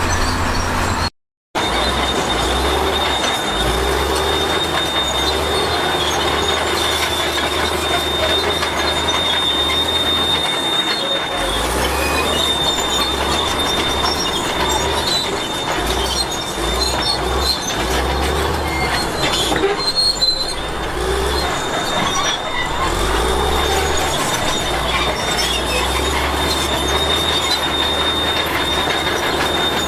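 Bulldozer working, its diesel engine running under a continuous high, steady squeal from the steel crawler tracks. The squeal fades for a while midway. The sound cuts out briefly about a second in.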